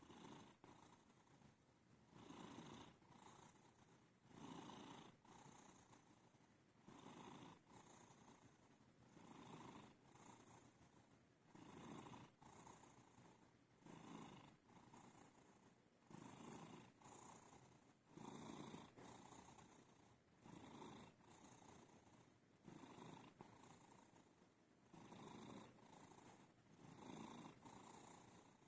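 A sleeping cat snoring softly, one slow breath about every two seconds.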